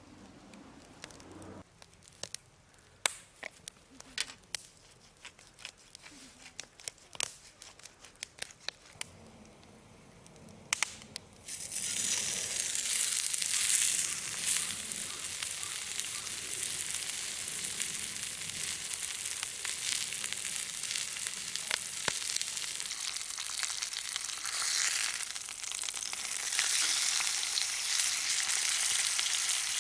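Scattered sharp clicks and crackles, then about eleven seconds in a loud, steady sizzle starts suddenly as food begins frying on a hot surface over the campfire.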